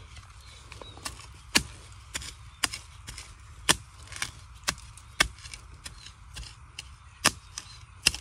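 A long-handled digging spade striking dry ground at the base of a bamboo clump, as she digs out bamboo shoots. The strikes come as a run of sharp chops, roughly one every half second and unevenly spaced.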